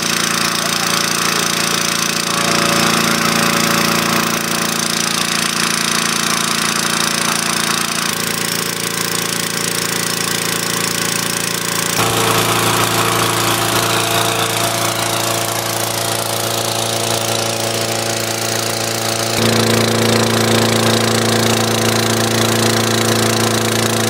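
Small petrol engine of a hot-air balloon's inflator fan running steadily while the envelope is cold-inflated. Its note shifts slightly about halfway through and again near the end.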